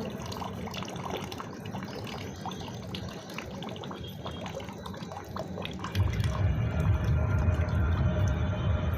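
Water from a neti pot trickling and dripping as it runs through the nose during jal neti nasal rinsing, with many small scattered drips. A low rumble comes in about six seconds in.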